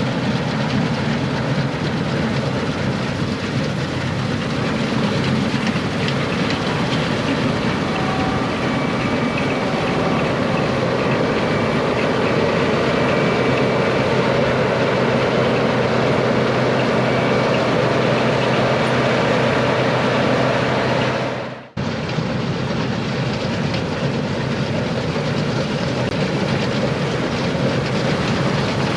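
International 1460 Axial Flow combine running steadily under load while harvesting wheat: a continuous drone of diesel engine and threshing machinery. The sound drops out abruptly for a moment about three-quarters of the way through, then carries on as before.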